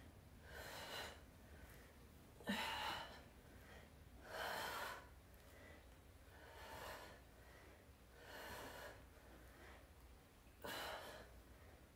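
A woman's breathing while she exercises: six short, faint breaths, about one every two seconds.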